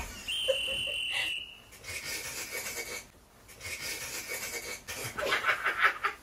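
A woman being tickled lets out thin, high-pitched squeals through held-back laughter, a sound likened to a cicada singing: three long held squeaks, the first the highest, then breathy wheezing giggles near the end.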